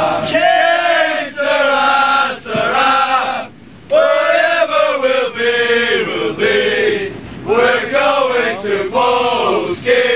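A crowd of Irish football supporters singing a terrace chant together in loud unison, packed inside a tram. The singing breaks off briefly about three and a half seconds in, then starts again.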